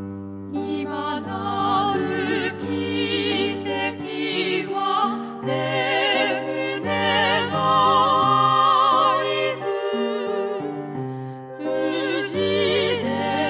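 A classical-style vocal group sings a slow Japanese song in long, vibrato-laden phrases over instrumental accompaniment.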